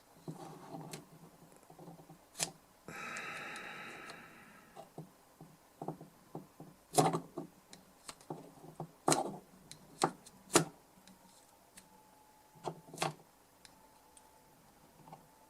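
Small hand tools clicking and tapping against a metal DI-box enclosure and its jack sockets while debris is picked out, with one rasping scrape lasting about two seconds, starting about three seconds in.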